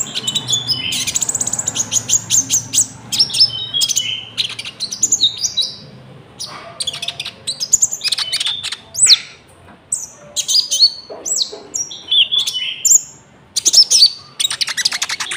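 A konin songbird singing a long, varied song of sharp chirps, short whistled notes and fast trills. The song is filled with cricket-like phrases, with a fast, buzzy trill about a second in.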